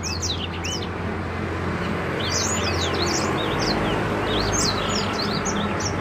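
Small caged songbird singing a rapid run of high chirps and whistles, breaking off about half a second in and starting again around two seconds in, over steady background noise.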